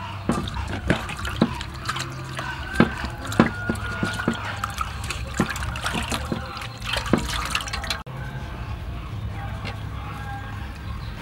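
Hands washing raw beef hearts in a metal basin of water: splashing and dripping with many short sharp clicks. About eight seconds in the splashing stops suddenly, leaving only a steady low background.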